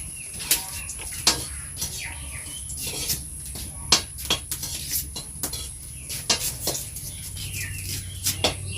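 Irregular clinks and knocks of kitchen utensils and pots being handled while cooking.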